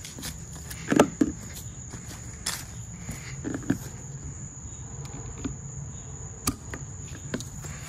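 Crickets trilling with a steady high-pitched tone. Over it come scattered clicks and knocks from handling an inflatable kayak's aluminium seat frame, straps and buckles, with a louder pair of knocks about a second in.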